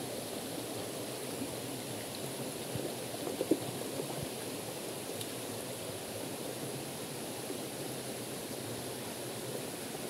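Shallow mountain stream running over rocks, a steady rush of water, with a couple of brief knocks about three and a half seconds in as stones are handled in the water.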